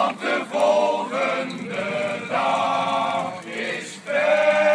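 Male choir singing in short phrases, then holding a long steady chord about four seconds in.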